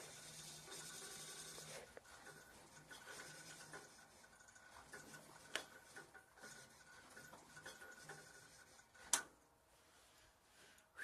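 Near silence: faint rubbing noise with two sharp clicks, the louder one about nine seconds in. No engine is running or cranking.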